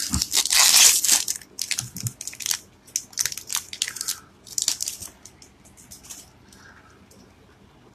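A foil Yu-Gi-Oh booster pack wrapper being torn open and crinkled in the hands: a fast run of crackles for about five seconds that thins out to faint rustles near the end.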